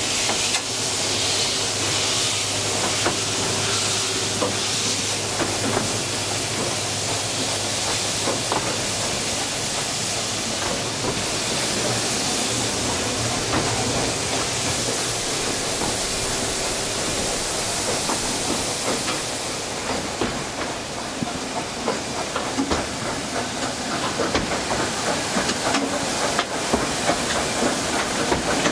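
Narrow-gauge steam train on the move, heard from aboard a carriage: a steady hiss of steam over the rattle of the carriage on the rails. The clicks and knocks of the wheels grow more frequent in the last third.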